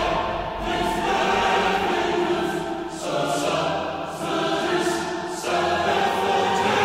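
Background music: a choir singing held chords that change every second or so.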